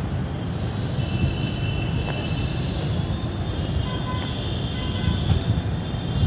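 Outdoor city background: a steady low rumble with thin, high-pitched tones held above it.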